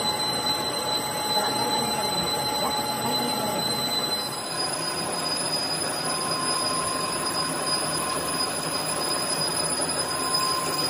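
Metal lathe running, its cutting tool turning a metal compressor gas-jacket sleeve, with a steady high-pitched squeal from the cut over the noise of the machine. The squeal changes pitch a little after four seconds in.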